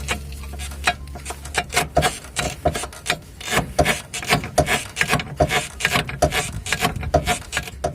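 Torn rubber bushing (silent block) of a car's front suspension control arm creaking and grating in quick repeated strokes as the arm is worked back and forth. The harsh squeak comes from a tear in the bushing's rubber.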